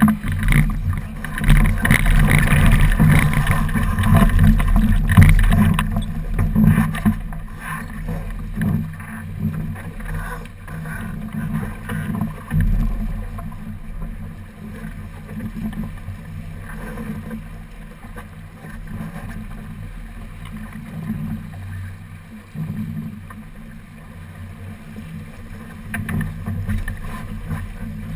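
Wind buffeting the microphone and water rushing along the hull of a keelboat under sail, louder for the first several seconds and then easing to a steadier rush.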